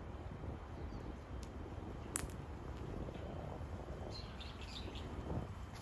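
Outdoor ambience: a steady low rumble with a few faint bird chirps about four to five seconds in, and a single sharp click about two seconds in.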